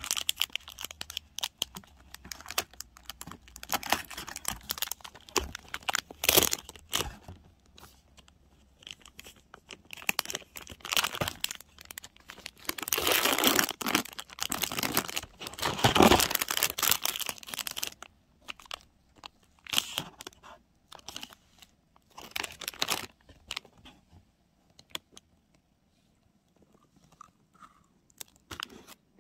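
Gift packaging being handled and torn open: paper and plastic wrap crinkling, tearing and rustling in spurts, loudest in two long stretches about halfway through, then only a few small taps.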